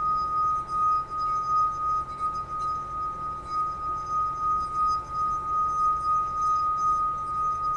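Wine glass partly filled with water, sung by a wet fingertip rubbed in circles around its rim: one steady ringing tone a little above 1 kHz, held throughout and pulsing slightly in loudness with each circuit of the finger.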